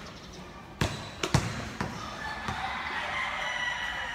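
Basketball bouncing on a concrete court: a few sharp bounces in the first two seconds. Then a rooster crows for about two seconds.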